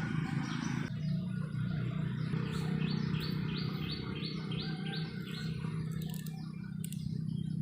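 A bird calling a run of about eight short, evenly spaced high chirps, a little more than two a second, over a steady low hum.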